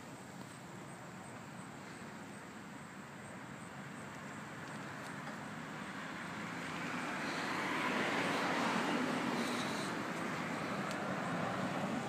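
Traffic noise over a steady low rumble, with a passing vehicle growing louder from about six seconds in, peaking around eight to nine seconds, then easing off.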